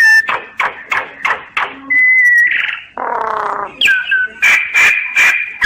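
Common myna singing: a run of harsh repeated notes at about three a second, a short held whistle about two seconds in, a rasping note, then whistles and more rhythmic notes.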